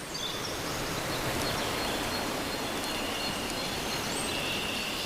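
Outdoor ambience: a steady hiss of background noise that fades up at the start, with a few faint high chirps and a thin steady high whistle from about three seconds in.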